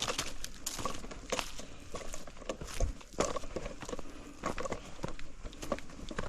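Footsteps of a hiker walking up a dirt hiking trail, with crunchy steps at an unhurried pace.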